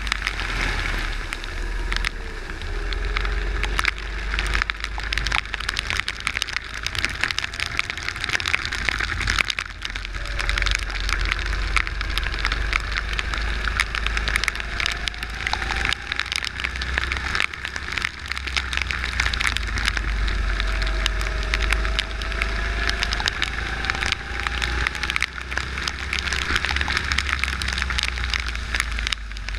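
Wind and wet spray crackling and buffeting on a kart's onboard camera while driving on a rain-soaked track. The kart's engine is faintly heard under it, rising in pitch a few times as it accelerates.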